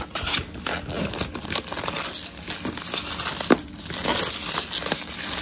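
Packaging on a gimbal's retail box crinkling and rustling in irregular crackles as it is torn open, with some tearing.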